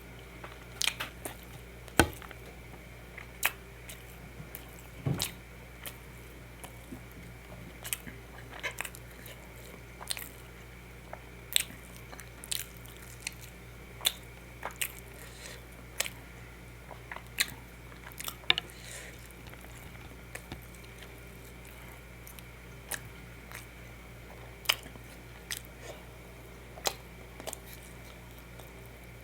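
Close-miked eating: chewing and biting, with irregular sharp clicks and crunches about once a second.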